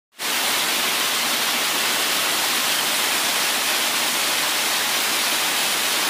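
Small waterfall splashing down rock ledges: a steady, even rush of falling water.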